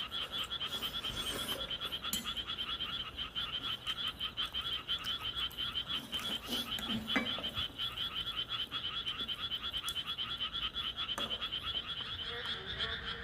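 Frogs croaking in a steady, rapid pulsing chorus, with a few light clicks of chopsticks against dishes.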